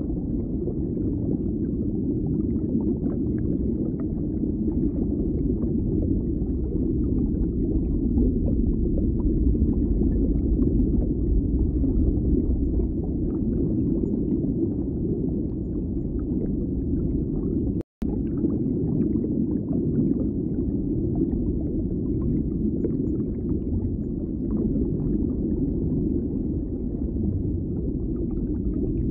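Steady low rumbling ambience, with a brief total dropout about eighteen seconds in.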